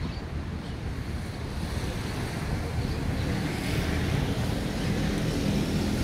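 Wind buffeting the phone's microphone: a steady, rough, deep rushing noise.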